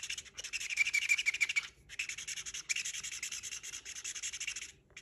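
Black felt-tip marker scribbling rapidly back and forth on corrugated cardboard, a dry scratching in several runs with short breaks, stopping just before the end.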